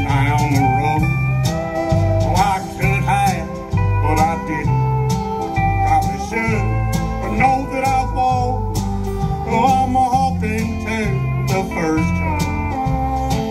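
Live country band playing an instrumental passage: steel guitar gliding between notes over electric and acoustic guitars, a bass line and drums with a steady beat.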